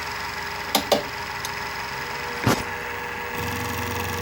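LMS 3900 HiTorque mini mill running steadily with an end mill in acrylic, with a few sharp clicks; about three seconds in, a deeper hum joins the steady machine sound.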